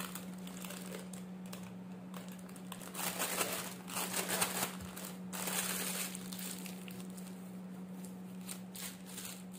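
Thin plastic piping bag crinkling and rustling as hands handle it and push soft cookie batter down inside, loudest for a few seconds in the middle.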